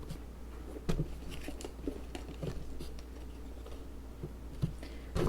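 Light handling noises of a pair of sneakers being turned over and shown: scattered soft taps, clicks and rustles, with a sharper tap about a second in and another at the end.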